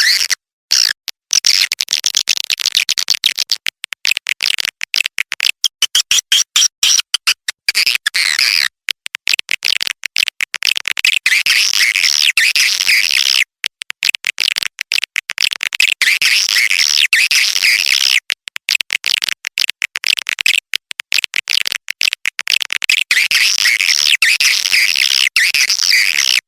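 Swiftlet lure-call recording: dense, rapid high-pitched chirping and twittering of white-nest swiftlets, broken by many short gaps. It is a call track played in swiftlet houses to draw birds in to roost and nest.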